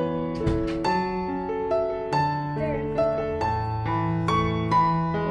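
Background music: a melody of short piano notes over held bass notes.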